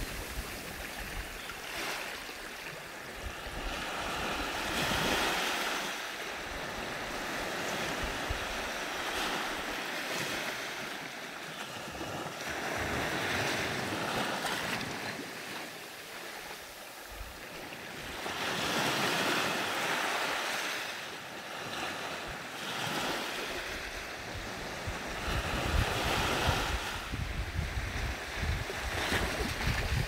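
Gentle surf washing up onto a sandy beach in small waves, the wash swelling and fading every few seconds.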